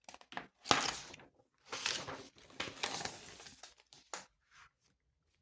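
Paper rustling and crinkling in several short irregular bursts, as a workbook page is handled and turned.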